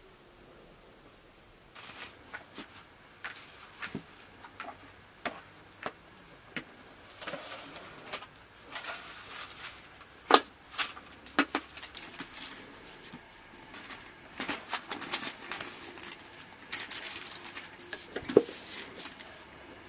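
Hand-work sounds of dough being rolled on a floured wooden board: scattered knocks, taps and short rustles. They begin about two seconds in after a quiet start.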